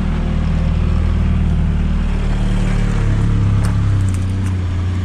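Car engine running steadily with road noise while driving slowly, a steady low hum, with a few light clicks a little after three seconds in.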